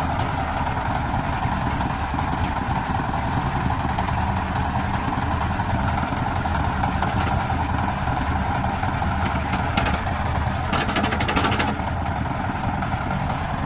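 Single-cylinder diesel engine of a three-wheeled công nông farm truck running steadily, with a brief burst of rapid rattling about eleven seconds in.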